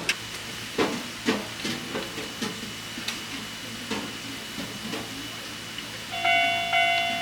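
Organ meat (intestine and lung) sizzling on a steel teppan griddle, with sharp taps and scrapes of a metal spatula on the plate every second or so. About six seconds in, a louder electronic ringing tone starts, pulsing on and off in an even rhythm.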